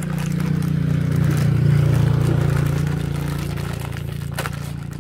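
A motor vehicle's engine hum swells and fades as it passes, over the crinkle of a plastic snack bag being pulled open by hand. A single sharp click near the end.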